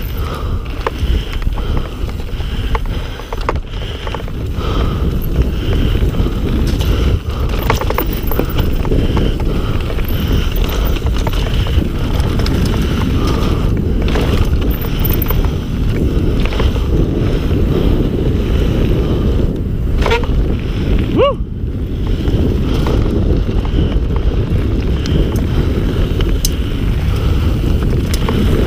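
Mountain bike descending a trail: steady wind buffeting on the microphone over the rumble and rattle of tyres and frame on rough ground, with scattered knocks.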